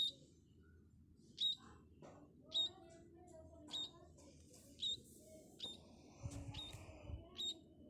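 Small bird calling with short, sharp chirps, about one a second, repeated steadily. A brief low rumble comes in about six seconds in.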